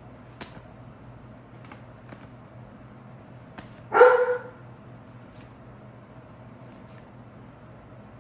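A dog barks once, sharply, about four seconds in. Faint clicks of trading cards being handled come now and then.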